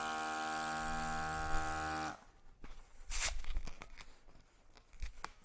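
Electric balloon inflator motor running with a steady hum as it fills a long red twisting balloon, cutting off about two seconds in. Then softer rubbing and squeaking of the inflated rubber balloon as it is handled, with a few light clicks near the end.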